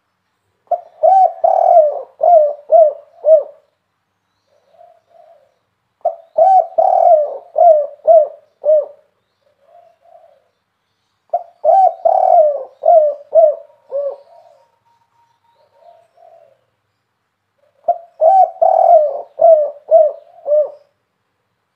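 Spotted dove cooing: four loud phrases, each a quick run of about six to eight coos lasting around three seconds, spaced a few seconds apart, with single soft coos between them.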